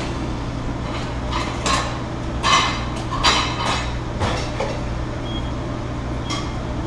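Kitchen clatter: pots, pans and metal utensils clinking and knocking a handful of times, some strikes ringing briefly, over a steady low hum from the kitchen's ventilation hood.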